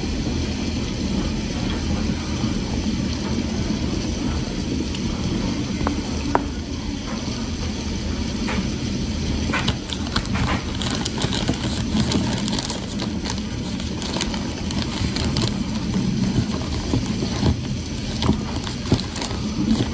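Close-miked eating of mashed potatoes: soft, wet chewing and mouth sounds over a steady low hum. From about halfway, a metal fork scrapes and clicks against the glass dish in quick, irregular taps.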